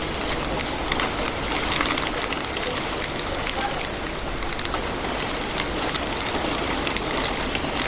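Heavy rain falling steadily: an even hiss dense with sharp drop hits.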